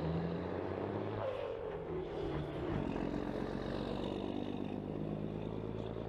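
Diesel engine of a Volvo cab-over truck running steadily as it drives along the road, with a tone that slides down in pitch about a second in.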